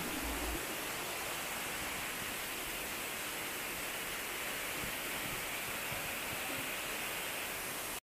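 Steady rush of water from a waterfall, an even hiss with no separate splashes.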